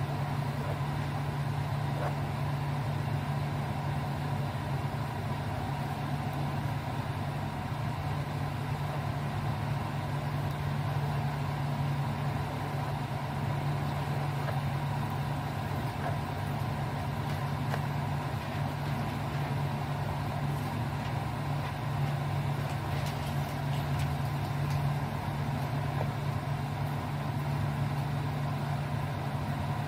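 Steady low mechanical hum, with a fainter steady higher tone above it.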